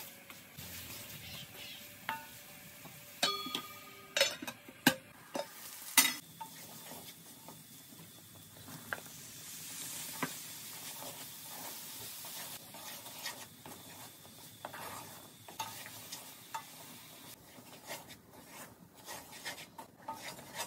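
A wooden spoon stirs and scrapes minced chicken in an aluminium pan over a light frying sizzle. A few sharp metallic knocks ring from the pan between about three and six seconds in. Later, peas are stirred through, with the sizzle briefly louder around ten seconds in.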